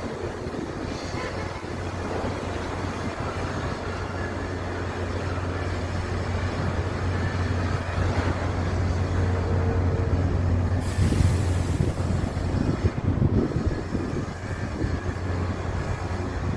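Wind rumbling on a phone microphone over a steady low hum, with a short burst of hiss about eleven seconds in.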